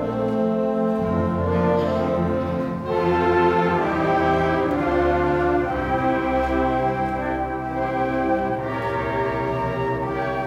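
School concert band playing, brass and woodwinds holding full chords that change every second or two.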